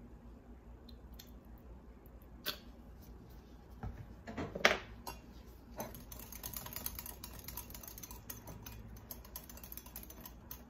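A few separate knocks, the loudest about four and a half seconds in, then a wire whisk beating a mayonnaise sauce in a glass measuring cup, its wires ticking quickly against the glass.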